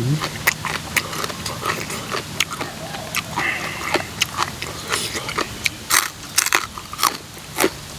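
A person chewing and biting crunchy food close to the microphone, with many irregular sharp crunches and smacks.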